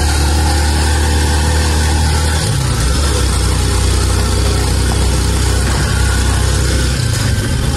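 Honda motorcycle engine pulling a sidecar tricycle, heard from inside the sidecar cab as it rides along. The engine note changes about two and a half seconds in and again near the end.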